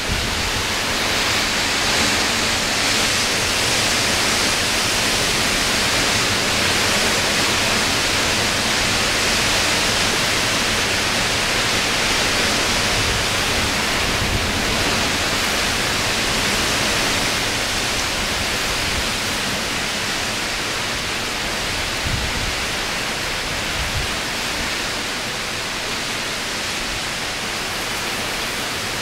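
Heavy tropical-storm rain squall pouring down in a steady hiss, with uneven low rumbles of wind gusting on the microphone. The downpour eases slightly a little past the halfway point.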